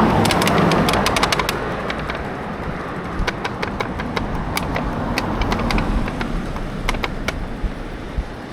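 Riding a bicycle: a steady rush of road and air noise, loudest in the first second or two and then easing off, with scattered sharp clicks and rattles throughout.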